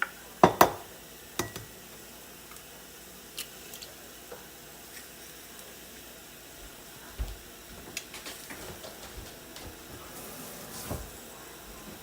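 Eggs being cracked against a glass mason jar: two sharp knocks about half a second in and a third near a second and a half, then scattered lighter clinks and knocks as the shells are handled, over a faint steady sizzle of onions and mushrooms cooking on a waffle maker.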